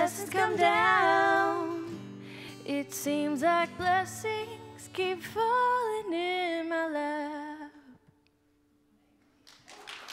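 A woman sings the closing lines of a worship song over acoustic guitar and keyboard chords. The music stops about eight seconds in, and after a short silence applause starts near the end.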